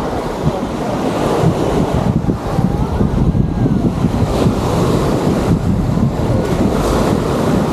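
Wind buffeting the microphone over the steady wash of small waves on a sandy beach.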